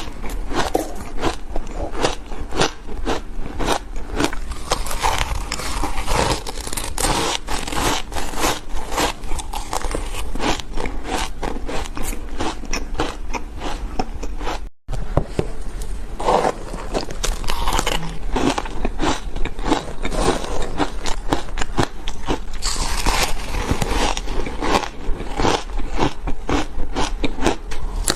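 Close-miked biting and chewing of hard ice chunks: dense, irregular crunching and cracking, with a scraping squeak to some bites. There is a momentary break about halfway through.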